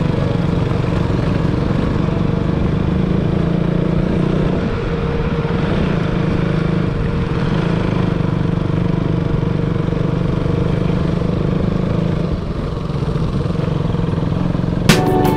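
Motorcycle engine running at steady low revs while riding over a rough dirt road, heard from the rider's own bike, easing off briefly twice. Music with sharp beats cuts in near the end.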